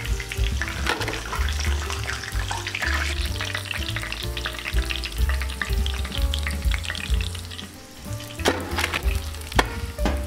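Breaded momos deep-frying in hot oil: a busy sizzle and crackle, with a slotted spoon stirring and lifting them in the pan. Soft background music with a low bassline runs underneath.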